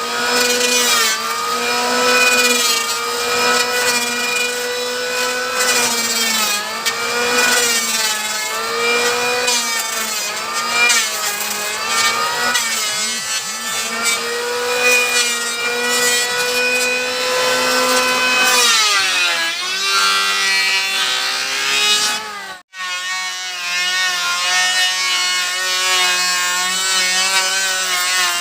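Electric wood planer running, its motor pitch dipping and recovering as the blades bite into the wood on each pass. Near the end the sound cuts out for a moment and comes back at a lower, steadier pitch.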